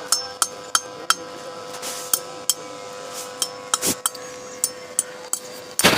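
Metal tapping on metal: sharp clinks, two or three a second, each with a brief ring. A short burst of noise comes about four seconds in, and a louder one near the end.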